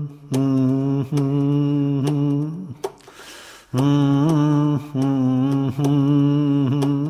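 A man's voice chanting a naat in long, nearly level held notes, in two phrases with a short break about three seconds in.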